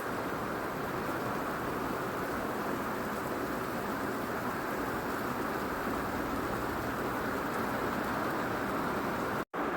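Heavy rain falling steadily on an RV, a continuous even hiss. It cuts out for an instant near the end.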